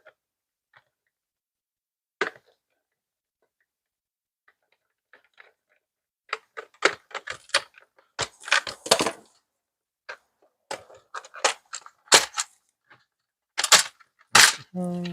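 Sharp plastic clicks and knocks from a Nerf Rival Takedown blaster shell and parts being handled and pried apart, mostly in scattered clusters from about six seconds in.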